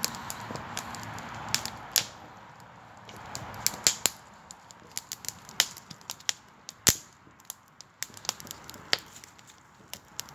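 Campfire crackling, with sharp irregular pops and snaps from the burning wood over a faint hiss.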